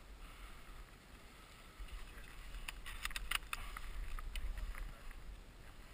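Wind rumbling on the microphone, with a quick cluster of sharp clicks about three seconds in and a few fainter clicks after.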